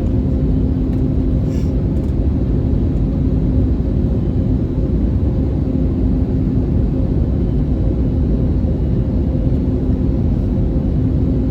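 Airbus A320neo cabin noise in flight: a steady low rumble of engines and airflow, with a constant low hum.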